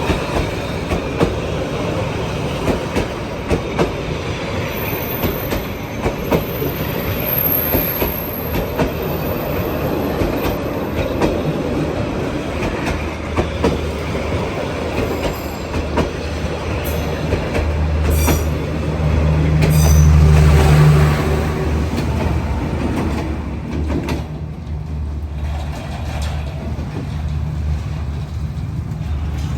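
Train rolling past on the rails, wheels clicking over the rail joints, with a thin high wheel squeal in the first third. A deep diesel locomotive engine drone rises in the middle and is loudest about two-thirds of the way through, then fades.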